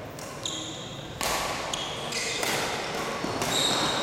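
Sports shoes squeaking in short high chirps on an indoor court floor during a doubles rally, with a few louder bursts of noise in between.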